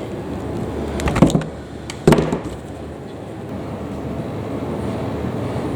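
Handling noise while the high-speed screw on a chainsaw carburettor is adjusted with a makeshift tool: two brief knocks about a second apart, over a steady low background noise. The engine is not running.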